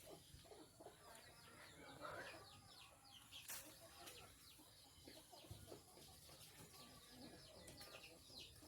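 Faint chickens clucking and calling, with many short high falling peeps scattered through, and a single sharp click about three and a half seconds in.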